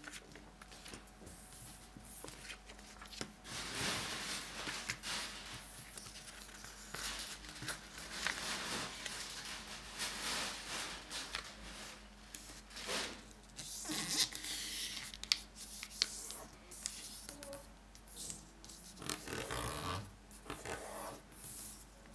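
A sheet of origami paper rustling and sliding on a wooden tabletop as hands fold it and press the creases flat, in irregular swishes and rubs with a few sharp ticks.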